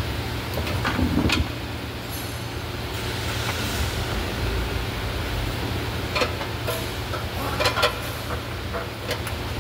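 Steady low workshop hum with scattered metallic clinks and knocks from hand work on the underside of a car on a lift, a cluster about a second in and more between about six and nine seconds in.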